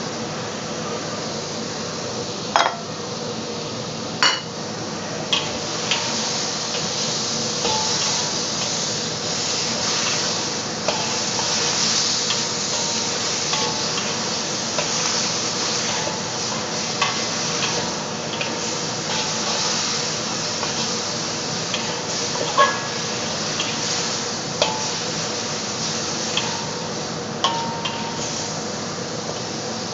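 Beef and sliced onion sizzling in a wok while being stir-fried, a metal spatula scraping and clinking against the wok. A few sharper clanks stand out, about two and a half and four seconds in and again about 22 seconds in.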